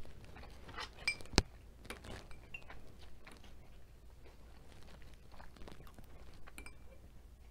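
Close-miked chewing of a mouthful of food with crunching, and one sharp loud click about a second and a half in. In the second half a spoon scoops ground meat from a small glass bowl, with light clicks.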